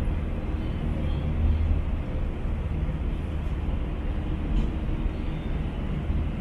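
Steady low engine rumble with a faint hum.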